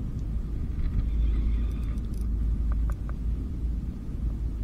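Wind rumbling on the camera microphone while a fishing reel is cranked during a fight with a bluefish. A faint whine of the reel runs for about a second, and a few light clicks come around the middle.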